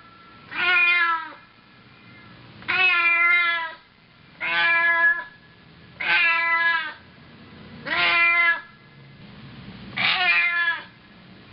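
Domestic cat meowing six times at a steady pace, one about every one and a half to two seconds; each meow lasts up to about a second and drops in pitch at its end.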